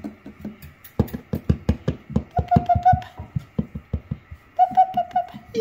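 Rapid light taps and knocks on wooden boards, about six to eight a second for a few seconds, typical of a puppy's paws and claws moving on a wooden stair landing. A high, steady, whistle-like tone sounds twice, near the middle and near the end.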